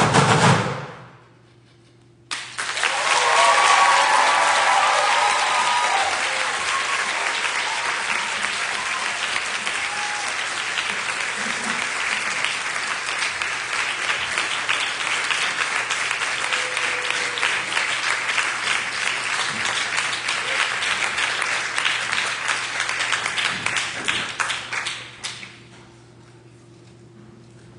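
A percussion piece ends with its last hits, and after a brief gap an audience applauds steadily for about twenty seconds before the applause dies away.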